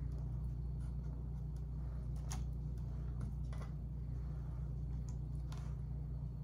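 A few faint clicks of a utensil against a metal pot as pieces of meat are put in, over a steady low hum.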